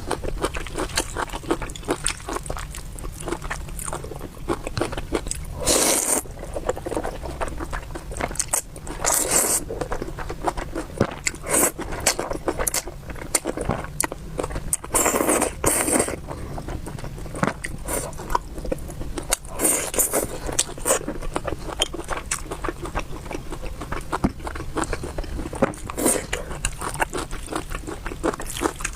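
Close-miked eating sounds: stir-fried wide rice noodles and bracken fern being chewed, with many small wet mouth clicks and several louder noisy bursts lasting about a second each.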